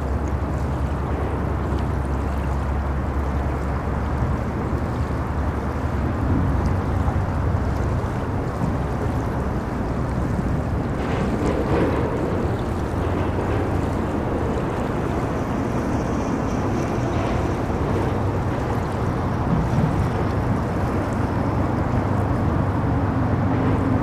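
Steady low rumble of road traffic, cars and trucks crossing a bridge, blended with the wash of moving river water.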